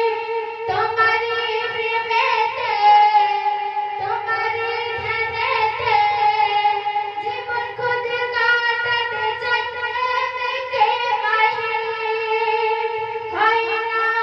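A woman singing a Bengali Islamic gojol, a devotional song, into a microphone, in long phrases whose melody bends and slides.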